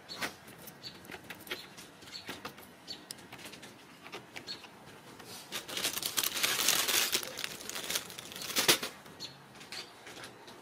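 Ragdoll kittens' claws scratching and scrabbling on the sisal-rope posts and carpet of a cat tree as they climb. The sound comes as scattered short scratches, with a longer, louder stretch of scrabbling in the middle.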